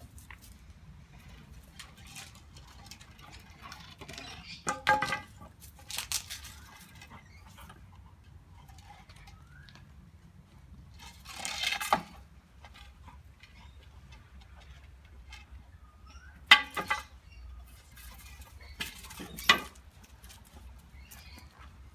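A black Labrador retriever tussling with a stick: scattered clicks, scrapes and brief squeaky sounds. The loudest are a short squeak about five seconds in, a longer scrape around twelve seconds, and two sharp squeaks near the end.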